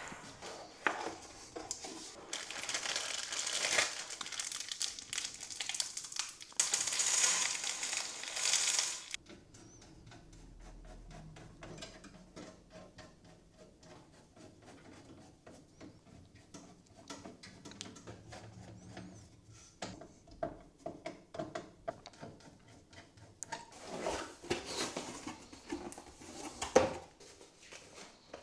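Packaging crinkling and rustling as it is handled, in long bursts for the first nine seconds or so and again near the end, with quieter clicks and handling noises in between.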